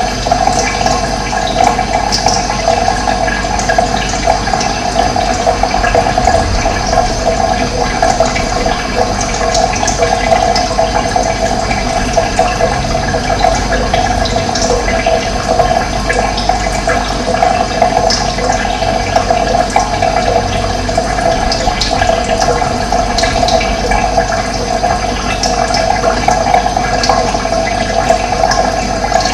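Running water flowing in a steady, unbroken rush, with scattered short high bird chirps over it.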